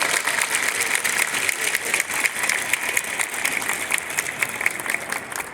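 A large crowd applauding, many hands clapping together, slowly dying down toward the end.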